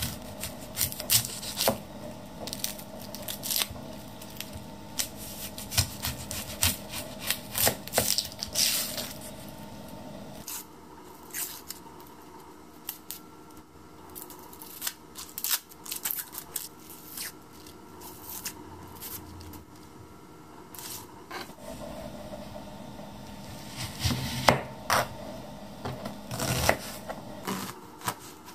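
A kitchen knife cutting an onion on a plastic cutting board and the onion's dry papery skin being peeled and torn away: irregular sharp knife taps, crackling and scraping. Near the end come clusters of quicker knife taps as the onion is sliced against the board.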